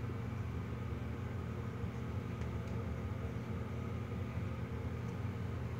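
Steady low background hum, like a fan or appliance running in a small room, with a few faint ticks from a dry-erase marker writing on a whiteboard.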